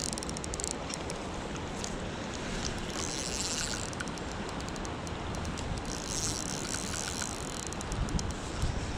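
A spinning reel's drag buzzing in two short spells, about three and six seconds in, as a hooked steelhead pulls line, over a steady rush of creek water.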